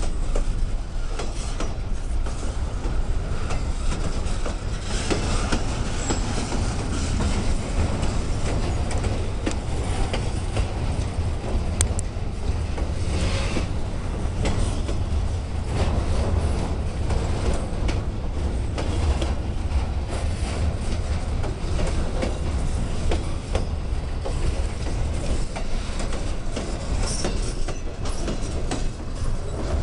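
Railroad cars rolling steadily past, their wheels clacking over the rail joints in a continuous run, with a few brief high wheel squeals.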